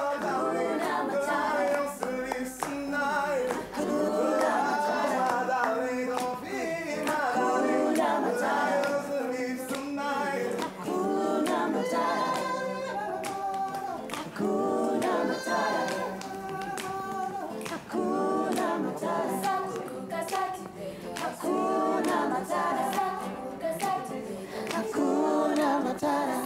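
A group of voices singing together, accompanied by a strummed acoustic guitar, with hands clapping along.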